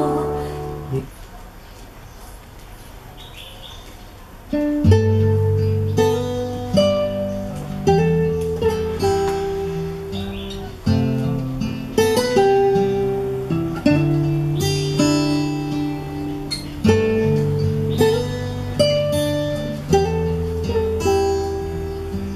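Guitar-led music with strong bass notes played back through old Sony three-way floor-standing speakers with 10-inch woofers, heard in the room. It starts about four to five seconds in, after a short lull, with a strum or plucked note roughly once a second.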